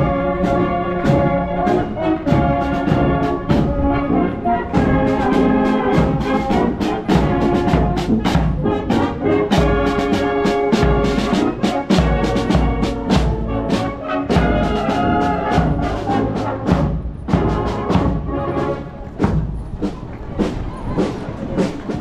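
Marching brass band playing a march: tuba, trumpets and flugelhorns over a steady snare and bass drum beat. The music grows a little quieter near the end as the band passes.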